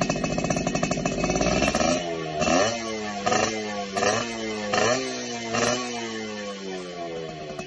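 Small two-stroke motorcycle engine running through an aftermarket BMS exhaust. It idles, then its throttle is blipped about five times, each rev jumping up quickly and falling back slowly, and it settles back toward idle near the end.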